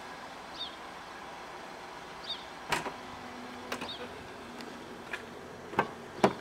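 Handling noises on a car's bodywork: scattered clicks and knocks, ending in two sharp clicks as the rear passenger door's handle and latch are pulled open. A small bird chirps a few times in the background.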